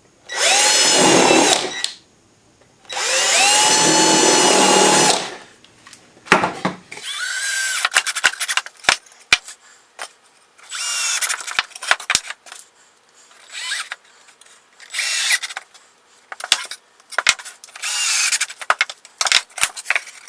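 Cordless drill boring pilot holes in the wooden box pieces: two long runs of about two seconds each, the motor rising in pitch as it comes up to speed and then holding. After that come several shorter drill runs as screws join the box together, with clicks and knocks of the wood being handled in between.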